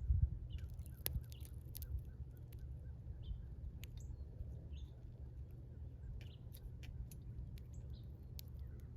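Small birds giving short scattered chirps at a feeder, with many sharp little ticks over a steady low rumble. A low thump comes right at the start.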